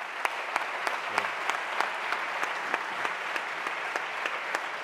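An audience applauding: dense, steady clapping with some sharper single claps standing out.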